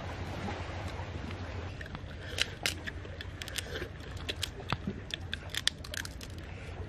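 Cooked sand lobster shells crunching and cracking as they are bitten and chewed. A rapid, irregular series of sharp cracks starts about two seconds in, over a steady low rumble.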